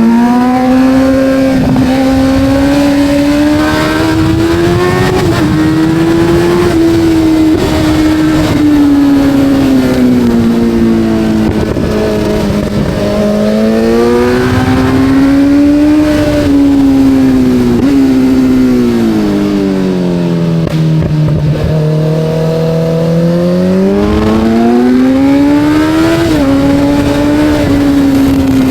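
Kawasaki Z900's inline-four engine under riding load, its pitch climbing and falling as the throttle is opened and rolled off through the bends. Brief drops in pitch mark gear changes, about five seconds in, near the middle and near the end.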